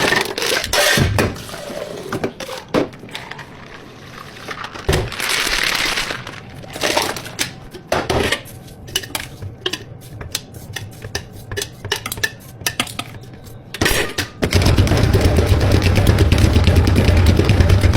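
Cups, utensils and containers clinking and knocking at a drink-prep counter, with a brief hiss partway through. About three-quarters of the way in, a loud electric motor starts and runs steadily, like a countertop drink blender.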